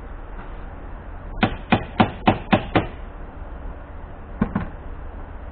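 Hammer tapping at a windshield wiper arm's base to knock it loose from its pivot: six quick sharp blows, about four a second, then a pause and two more.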